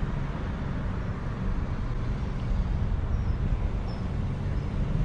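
Steady low rumble of road traffic with a hiss of road noise.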